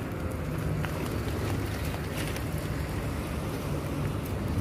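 Outdoor wind buffeting the microphone: a steady low rumble, with a few faint clicks on top.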